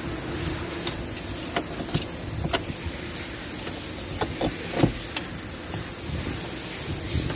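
Scattered light clicks and knocks from tools and parts being handled, with the sharpest knock just under five seconds in, over a steady background hiss.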